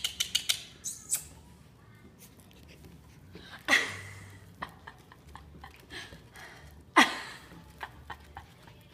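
Maltipoo puppies playing: a quick run of light clicks near the start, then two short, sharp squeaks that drop in pitch, about four seconds in and again about seven seconds in.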